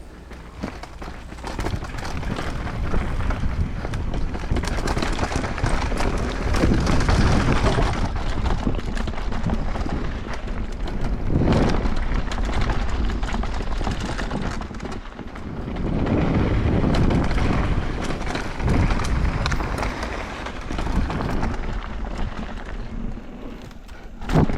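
Riding noise from an electric mountain bike descending a bike-park trail: wind buffeting the helmet camera's microphone over a low rumble from the tyres on dirt, with many small clicks and rattles. The noise grows louder about a second and a half in and swells and eases with speed.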